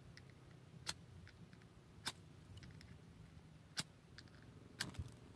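Ferrocerium fire-steel rod scraped with a striker to shower sparks onto a tinder bundle: five sharp, short scrapes about a second apart, the last two close together near the end.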